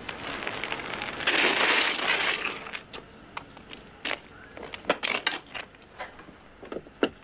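Bicycle tyres crunching over gritty, snow-patched ground, loudest about a second in and fading after two and a half seconds, followed by a run of scattered sharp clicks and knocks.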